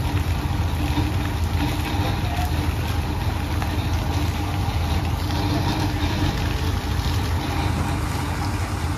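Vishal 435 combine harvester's diesel engine running steadily at low speed.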